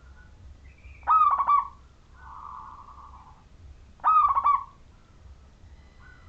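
Zebra dove (perkutut) cooing: two loud phrases of quick, clipped notes, about three seconds apart, with a softer drawn-out coo between them.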